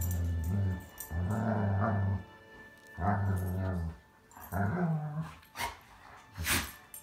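A dog growling in four low rumbles, then two short sharp sounds near the end, with background music underneath.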